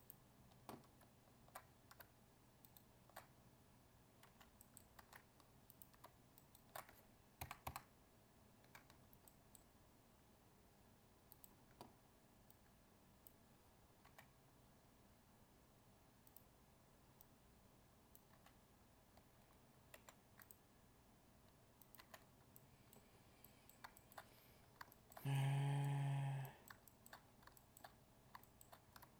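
Faint, scattered computer keyboard and mouse clicks. Near the end comes a short steady tone lasting about a second, louder than the clicks.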